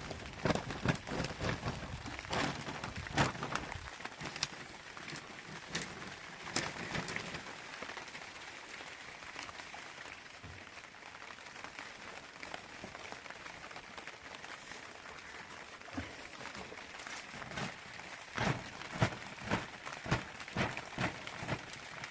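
Steady rain hiss, with irregular knocks and thumps clustered in the first few seconds and again near the end.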